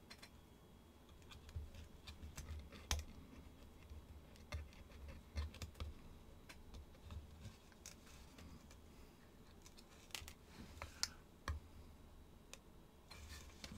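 Faint, irregular clicks and light knocks of small metal parts being handled as the powder flask's steel spring is pushed back by hand.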